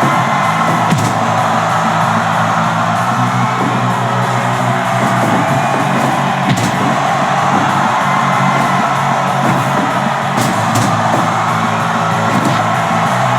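Music playing at a steady, loud level, with a few brief sharp knocks about a second in, midway and twice near the end.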